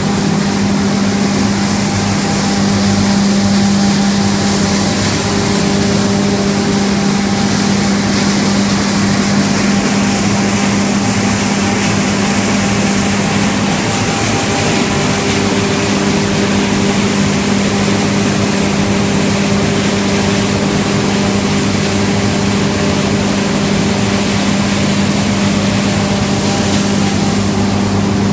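Wood chip hammer mill running steadily while grinding chips fed in by a belt conveyor: a loud, even machine hum with a strong low tone under a constant hiss.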